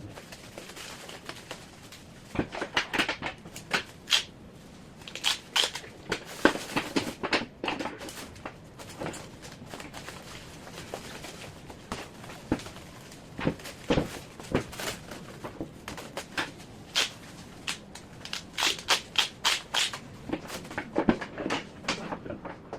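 Irregular clicks, knocks and rustles of a paintless dent repair rod set being handled and packed, coming in clusters of quick sharp taps.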